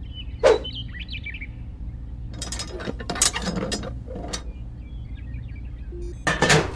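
Birds chirping faintly, with sharp clicks and scraping knocks: one about half a second in, a cluster in the middle, and a louder one near the end.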